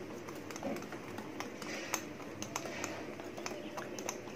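Metal wire whisk beating thick semolina cake batter in a ceramic bowl: irregular light clicks of the wires against the bowl, a few a second, over a soft swishing of the batter.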